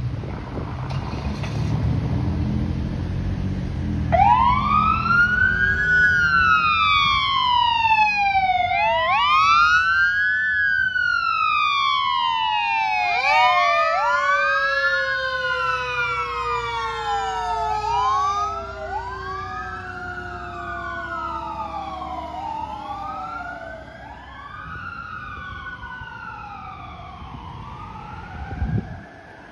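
Fire engine siren wailing, rising and falling about every four to five seconds, starting about four seconds in over the rumble of the engine. About halfway through a second, overlapping wail and a long tone sliding slowly down join in, and the siren fades toward the end as the fire engine drives away.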